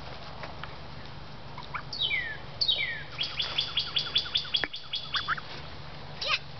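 Bird chirping: two high whistled calls that slide downward, then a quick run of short, even chirps, about five a second, with a couple more near the end.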